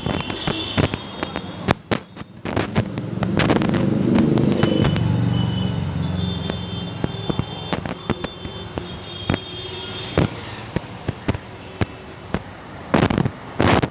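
Firecrackers popping and crackling in quick, irregular succession. A louder low rumble swells in about three seconds in and fades by about ten seconds.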